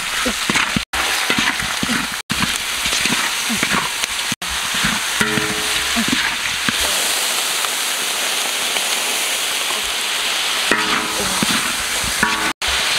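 Catfish pieces with chilies and lemongrass sizzling as they are stir-fried in a large metal wok, the stirring tool scraping and turning them. The sound cuts out briefly a few times.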